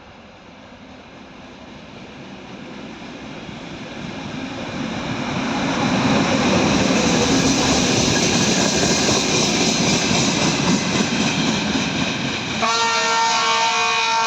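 ChME3 diesel shunting locomotive approaching, its engine and running noise growing louder over about six seconds and then holding loud. Near the end it sounds its horn in one steady multi-tone blast, the warning before a crossing.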